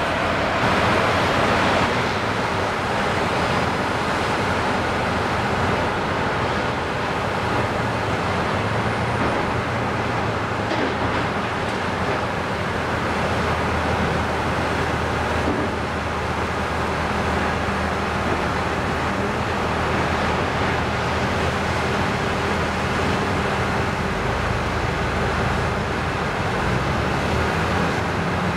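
Diesel engine of a Volvo demolition excavator running steadily, a continuous low mechanical rumble.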